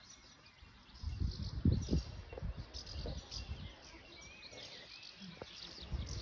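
Small birds chirping and twittering outdoors, with short gliding calls scattered throughout. Irregular low rumbling noise underneath is loudest about one to three seconds in.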